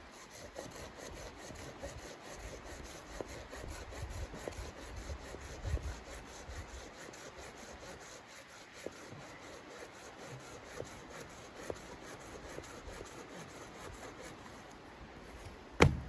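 Folding hand saw cutting through a thin log with steady back-and-forth rasping strokes. Near the end there is one sharp, loud crack as the log is broken at the cut.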